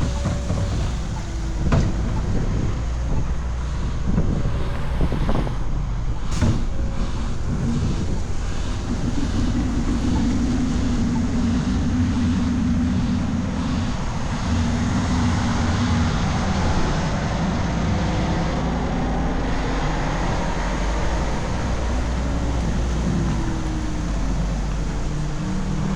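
Street traffic: vehicle engines running and passing close by, a steady low rumble with an engine hum that swells and fades about halfway through.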